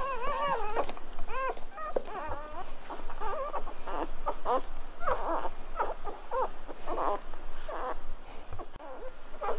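Newborn golden retriever puppies squeaking and whimpering: a continuous run of short, wavering high-pitched calls, the first few longer and the rest quick and choppy.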